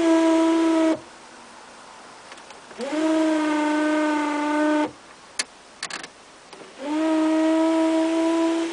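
VW panoramic sliding sunroof squealing as it moves: three long, steady squeals of a couple of seconds each, the second and third sliding up in pitch as they start, with a few sharp clicks between the second and third. The squeal is a fault that repeated dealer repairs have not cured.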